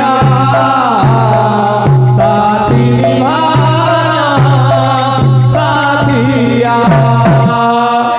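Sambalpuri kirtan music: barrel drums beating a steady rhythm, about two low strokes a second, with hand cymbals and a melody over the top.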